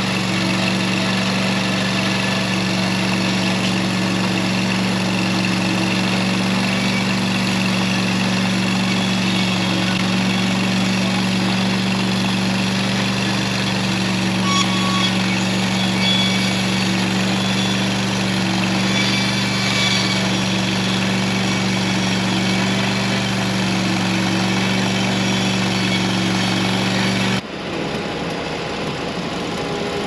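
Norwood portable bandsaw mill's gas engine running steadily under load while the saw head makes a pass along a large walnut log. Near the end the engine sound cuts off abruptly, giving way to quieter machinery noise.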